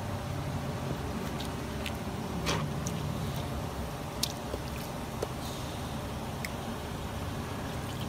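Water from a garden hose running and splashing onto plastic air-conditioner filter mesh as the filters are rinsed, with a few sharp ticks about two and a half and four seconds in.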